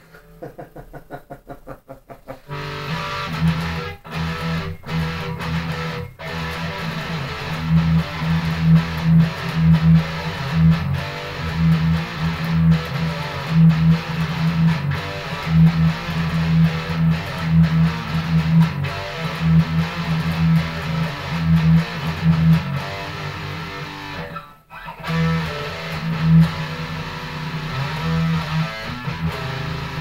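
Heavy-metal riffing on an ESP LTD JH600 electric guitar with an EMG 81 active pickup, played through a distorted amplifier. It opens with a couple of seconds of quieter, rapid picked notes, then full distorted riffing with strong low notes, breaking off briefly about 25 seconds in before carrying on.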